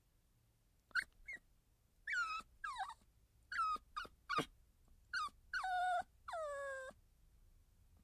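A puppy giving about ten short, high-pitched cries, most sliding down in pitch, the last two longer and drawn out.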